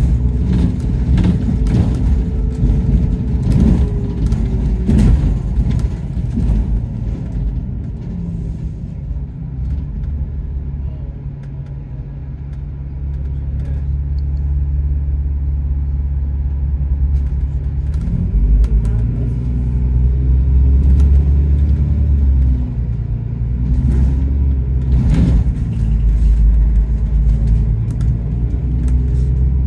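A bus running along the road, heard from inside on the upper deck, with its engine note rising and falling as it speeds up and slows. For a few seconds midway it settles to a steady low drone, and a few knocks sound over the rumble, twice in quick succession near the start and once more near the end.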